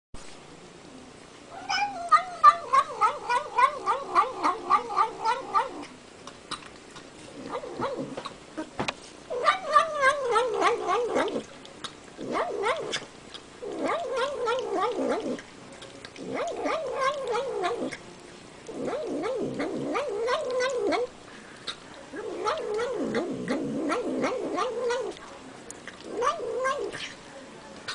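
A cat making a series of drawn-out, wavering moaning calls while it eats, about eight in all with short pauses between. The first call is the longest and pulses rapidly.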